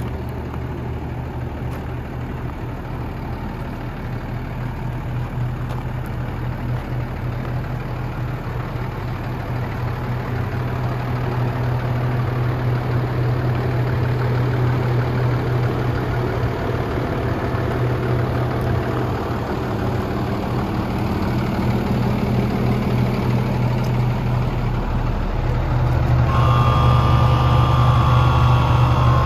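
Cummins ISB inline-six turbo diesel in a medium-duty dump truck idling steadily. About three seconds before the end it gets louder and a whine joins in.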